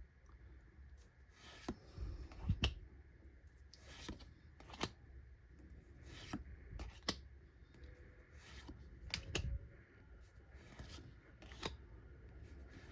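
Pokémon trading cards being handled and flicked through by hand: soft, scattered taps, clicks and rustles of card and pack.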